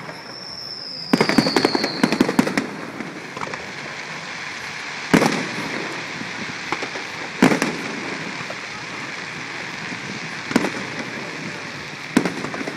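Fireworks display: a whistle falling in pitch, and about a second in a rapid volley of crackling reports. Then single loud shell bursts bang every two to three seconds.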